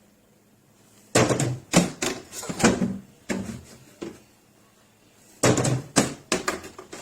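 Hard game balls rolled on a Roll & Score arcade game, knocking and thudding against the ramp and scoring rings in two quick runs of impacts.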